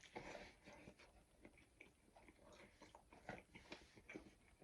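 Faint chewing of a mouthful of pizza, with a scatter of soft, irregular crunches and mouth clicks.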